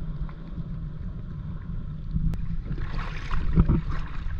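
Wind buffeting the microphone in a steady low rumble, with a short splash of shallow water about three seconds in, followed by a couple of low knocks.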